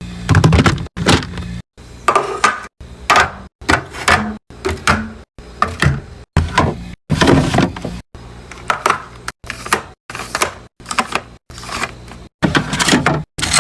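Drinks, snacks and containers being handled and set into a mini fridge: clatter, knocks and packaging rustle, in short chopped segments with abrupt breaks between them.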